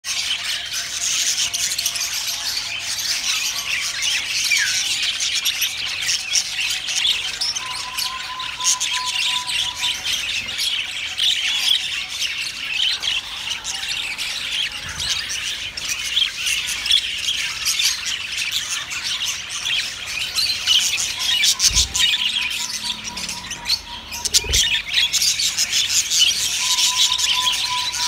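A crowd of caged budgerigars chattering and chirping nonstop in a dense, overlapping mass of rapid calls. Two short low thumps come about three-quarters of the way through.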